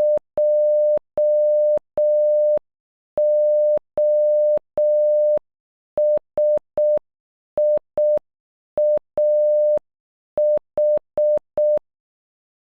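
Morse code for "Josiah" sent at half speed as a steady electronic beep: dot dash dash dash, dash dash dash, dot dot dot, dot dot, dot dash, dot dot dot dot, with a faint click as each tone starts and stops.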